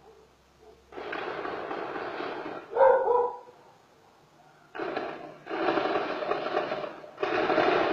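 Long bursts of gunfire, several rapid-fire volleys of a second or more each. A dog barks once about three seconds in, the loudest sound.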